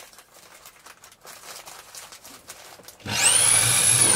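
Faint knocks and handling noises, then about three seconds in an electric drill starts up with a whine that rises quickly in pitch and holds high.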